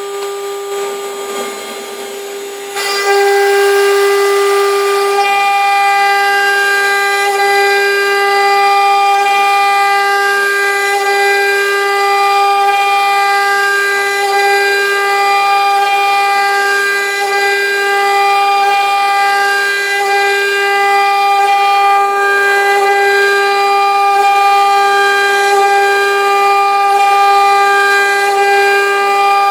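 CNC engraving machine spindle running at high speed: a loud, steady high-pitched whine that jumps louder about three seconds in and then holds steady.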